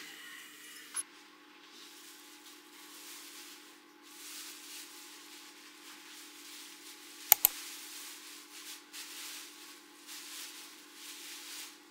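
Kitchen utensils rubbing and scraping over a steady low hum, with two sharp clicks close together about seven seconds in.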